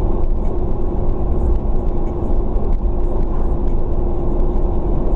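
Car driving at steady road speed, heard inside the cabin: a constant rumble of engine and tyre noise with a steady droning tone through it.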